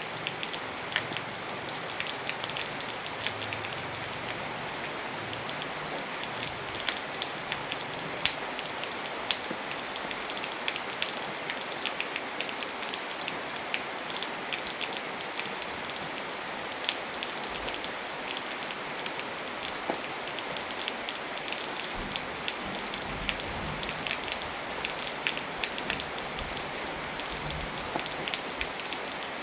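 Steady rain falling on a surface, a constant hiss with many individual drops ticking sharply throughout.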